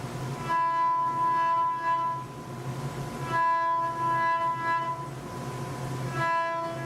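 A CNC machine's motors whine with a steady multi-tone hum in three stretches of about one and a half to two seconds each, at the same pitch every time, as the machine makes repeated moves.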